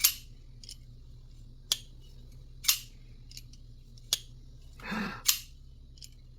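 Brian Brown Yeager folding knife being flipped open and snapped shut over and over: about six sharp metallic clicks roughly a second apart, with a softer sliding rustle just before the last. It is being tested for a tinkly rattle after its loose handle screws were tightened.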